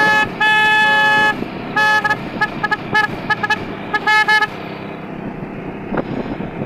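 Motorcycle horn sounding: a long blast, a second held blast, then a quick string of short toots from about two to four and a half seconds in. Underneath is the steady hum of the motorbike riding.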